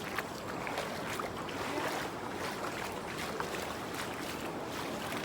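Steady rush of the flood-swollen Narayani river's water, with scattered light ticks through it.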